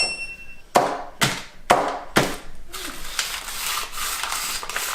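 Four sharp knocks about half a second apart, followed by a longer, denser rattling clatter.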